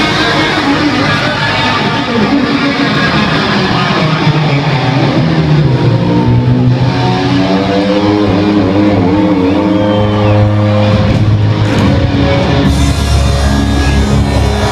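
Loud electronic dance music from a hardstyle DJ set, with held melodic notes and a deep bass that comes in about eleven seconds in.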